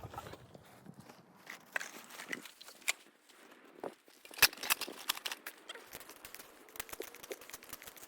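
Footsteps crunching in snow: an irregular run of sharp crunches and clicks, densest and loudest from about halfway through.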